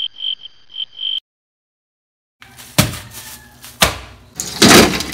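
A short high electronic tone that pulses several times for about a second, then a pause. Then plastic bags of food rustle and thump on a kitchen counter, with the loudest crinkle near the end.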